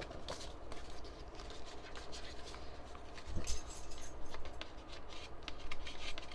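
Paper and card rustling and crinkling, with light taps and clicks, as an album's printed inserts are handled and unfolded; the noises are busiest in the second half.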